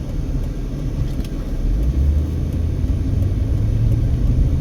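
Car engine and tyre rumble while driving, heard from inside the car, growing a little louder about two seconds in.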